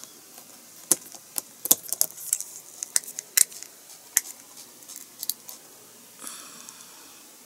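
Irregular light clicks and taps of a small plastic model part and a paintbrush being handled during brush painting, about a dozen in all, with a brief rustle about six seconds in.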